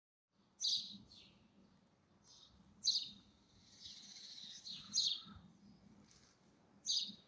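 A bird calling outdoors: four short, sharp high chirps about two seconds apart, with fainter chirps and twittering between them.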